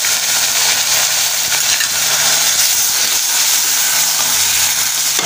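Ginger-garlic paste and browned onions frying in hot oil in a karahi, a loud steady sizzle.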